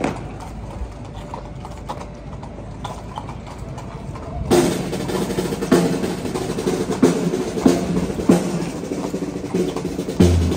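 Horse hooves clopping on paving stones, then from about four and a half seconds in marching drums come in with a slow, steady beat, roughly one stroke every two-thirds of a second, each stroke ringing with a low pitch.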